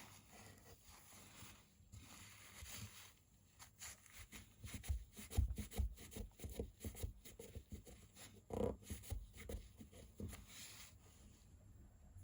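Faint rubbing and irregular light clicks of small folding-knife parts being handled and wiped on a work surface during disassembly, busiest in the middle.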